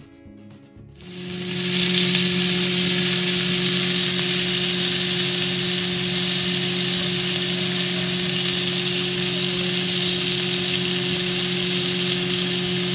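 Sliced buffalo meat sizzling in hot oil in a wok as it is stirred with chopsticks. The loud sizzle starts about a second in and then holds steady, with a low hum underneath.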